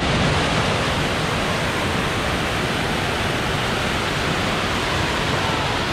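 Waterfall: the outflow of a reservoir pouring white down a rocky chute, a loud, steady rush of water.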